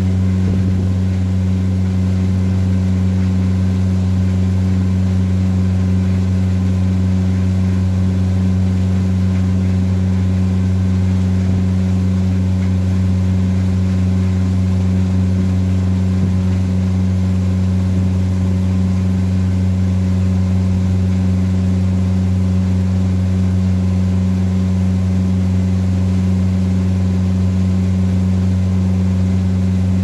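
Boat motor running steadily at constant speed, an even low drone that holds one pitch.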